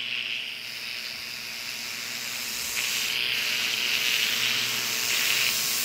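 Pressure washer jet spraying a concrete walkway: a steady hiss of water striking the slab, a little louder from about three seconds in.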